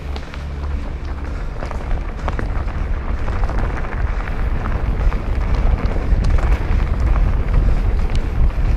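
Wind buffeting an action camera's microphone as a mountain bike rides fast down a dirt and gravel trail, with steady tyre noise and frequent short clicks and rattles from the bike and loose stones, growing louder in the second half.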